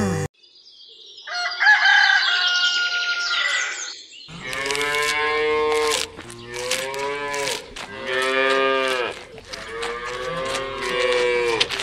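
A rooster crows about a second in, then cows moo in a run of about four long, rising-and-falling moos, as sound effects.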